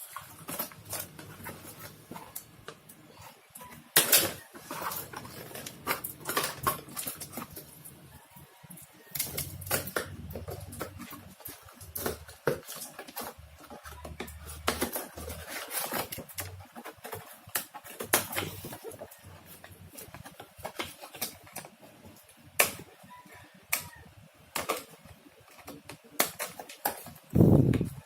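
Hands working at the packaging of a WLtoys 18428 RC car: irregular clicks, taps and rustles of plastic and cardboard being handled.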